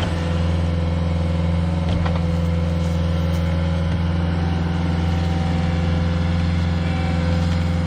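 ASV compact track loader's diesel engine running steadily at raised throttle, holding an even note throughout.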